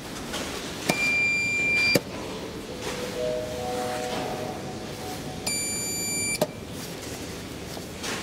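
Two electronic beeps, each a steady high tone held about a second, from the SMW elevators' hall call buttons as calls are registered. Between them a soft three-note chime climbs in pitch.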